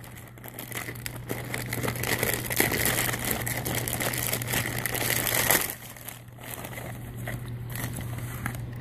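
Packaging crinkling and rustling as it is handled and pulled open to get the mask out, dense for about five seconds and then stopping, with quieter handling after.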